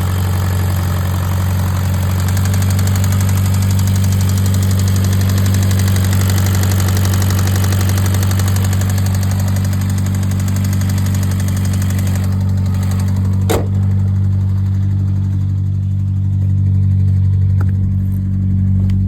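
Car engine idling steadily with a fast, even knocking tick, which the owner suspects may be rod knock. The higher-pitched clatter fades about two-thirds of the way through, and there is a single sharp click shortly after.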